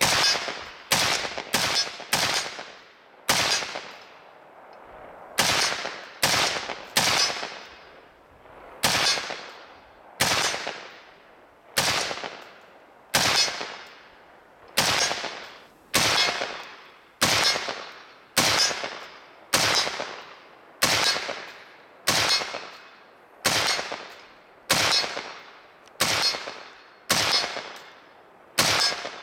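Palmetto State Armory 20-inch A2-style AR-15 rifle in .223 Remington firing semi-automatic, about thirty shots, each with a short ringing echo. The first few come quickly, and after a pause of about two seconds the rest follow steadily at roughly one a second.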